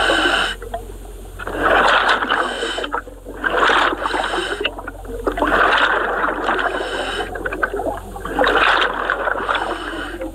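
Scuba diver breathing through a regulator underwater: a rush of air and bubbles with each breath, coming in surges every two seconds or so.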